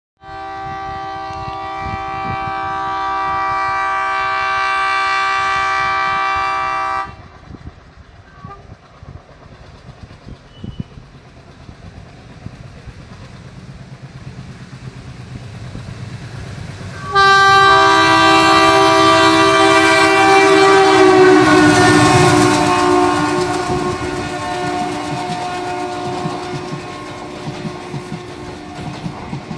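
An Indian Railways WDM3A ALCO diesel locomotive sounds two long multi-tone horn blasts. Between them come quieter engine running and wheels clicking over rail joints, growing louder as the train accelerates. The second blast is the loudest, and its pitch drops partway through as the locomotive passes.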